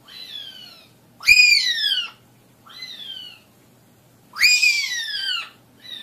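African grey parrot giving a series of five high, whistle-like calls about a second apart, each sliding down in pitch; the second and fourth are the loudest.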